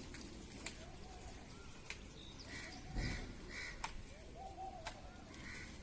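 Birds calling at a feeding spot: repeated short calls, with a few sharp ticks scattered among them.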